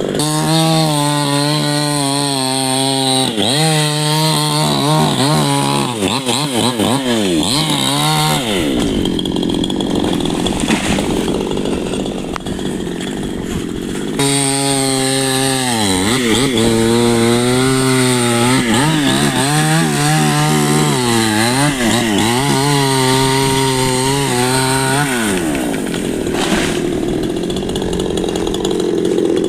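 Chainsaw running at high revs and cutting wood in two long passes about six seconds apart. The engine pitch dips and recovers repeatedly as the chain bites into the timber.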